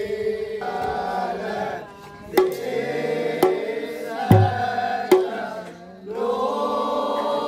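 A group of men singing a Kumaoni Holi song together in long held notes, accompanied by a dhol. A handful of loud drum strokes fall in the middle, the heaviest a deep bass stroke, and the singing swells again near the end.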